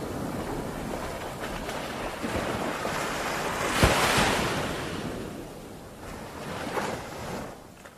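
Ocean surf: a steady wash of breaking waves. About four seconds in, a sharp thump comes inside a swell of surf, and a smaller surge follows near the end before the sound fades out.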